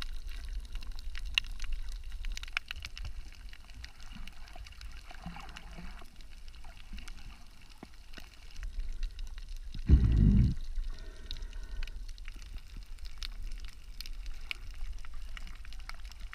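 Underwater sound on a shallow coral reef: a steady muffled low rumble of water with scattered faint clicks and crackles, and one louder low whoosh about ten seconds in that lasts about a second.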